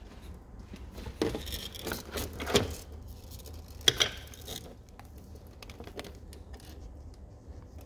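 Handling noise from an inspection camera's cable being moved over the engine: scattered rustles, knocks and clicks, the loudest a single sharp click about four seconds in.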